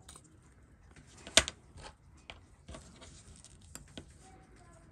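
Small sharp clicks and taps of watchmaker's tools on the little metal parts of a wristwatch movement being taken apart, with one louder click about a second and a half in.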